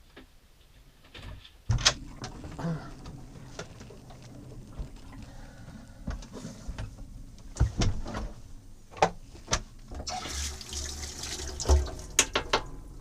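Water running from a tap into a sink, with sharp knocks and clinks of things being handled. It starts suddenly about two seconds in and rushes louder near the end.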